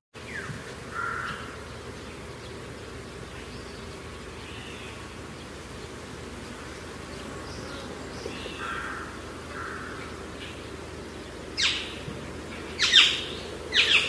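Waterfall's rushing water making a steady roar, with birds calling a few times over it. Near the end come three sharp knocks, the loudest sounds.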